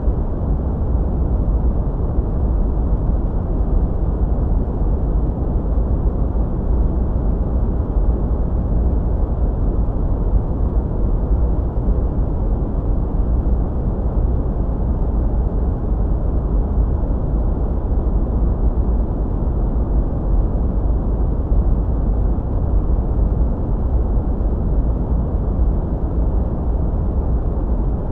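Steady sleep white noise, filtered deep and muffled like brown noise: an even hiss, heaviest in the low end, with almost nothing in the high treble and no change in level.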